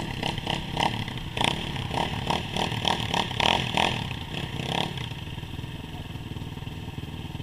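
Dirt bike engine idling steadily, with irregular clicks and knocks over the first five seconds that then stop.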